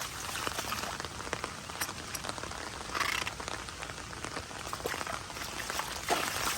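Steady rain falling, with many close drops ticking sharply. There is a brief louder surge about three seconds in and one sharp hit near the end.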